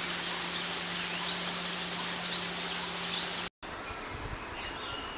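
Outdoor ambience of insects chirring steadily, with faint bird calls over it. The sound cuts out briefly about three and a half seconds in, and a different stretch follows with a thin, steady high tone.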